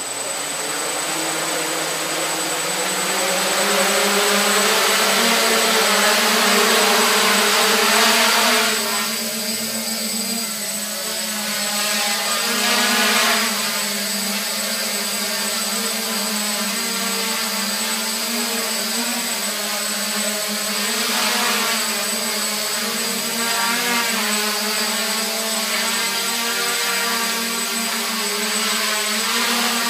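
S500 quadcopter's four Multistar 2212 920kv brushless motors spinning 8x5 propellers with a steady whirring buzz as it spins up and hovers, its pitch wavering as the motor speeds change. It builds over the first few seconds, is loudest until about eight seconds in, then eases a little and holds.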